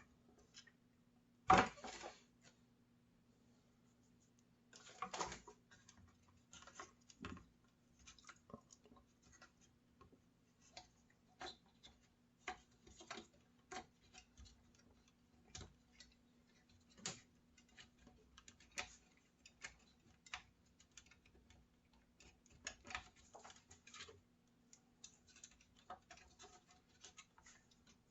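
Scattered small clicks, taps and knocks of parts and wiring being handled and fitted back into a router's housing during reassembly, with one louder knock about a second and a half in.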